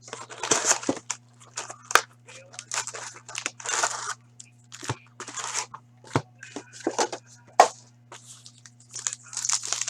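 Packaging of a sports card box being torn and crinkled open by hand, in a string of short rustling rips with a few sharp clicks and snaps. A steady low electrical hum underneath.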